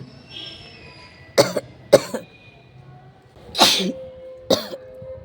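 A person with a heavy cold coughing: four hard coughs in two pairs, the second pair a couple of seconds after the first.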